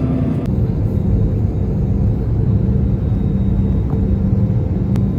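Airliner cabin noise: the engines and airflow make a steady, loud low rumble with a faint hum over it, and the sound changes abruptly about half a second in.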